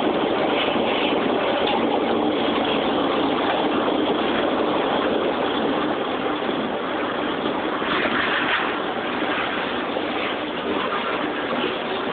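Diesel freight locomotives passing with their engines running, followed by freight cars rolling by on the rails. A steady, dense rumble that eases a little about halfway through as the locomotives pass.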